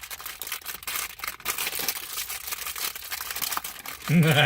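Blind-box toy packaging being torn open and crinkled by hand, cardboard and small plastic bags, a dense run of crackles and rustles. A voice breaks in near the end.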